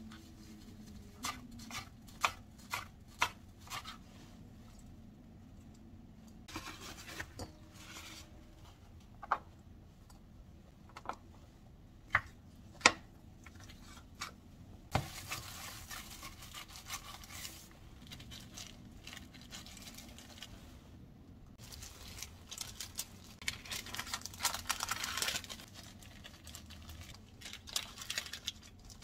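Hand food prep: scattered sharp taps and clicks against a stainless steel mixing bowl as ground meat and tofu are worked together. There are stretches of rustling, crinkling parchment paper, the longest near the end.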